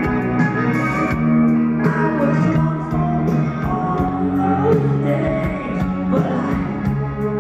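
Live rock band playing with guitar, bass and a steady drum beat, with a man singing over it.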